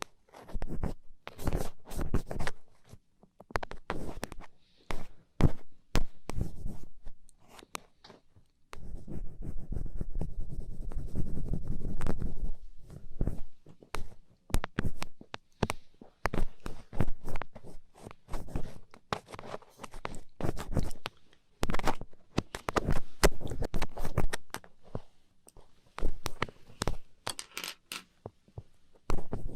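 Black ear pick scratching and scraping inside an ear close to the microphone, in irregular short strokes, with a longer stretch of steady rubbing about nine to thirteen seconds in.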